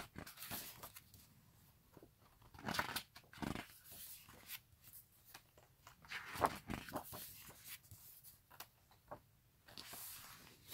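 Pages of an album photo book being turned by hand, with paper rustling and sliding in several short bursts.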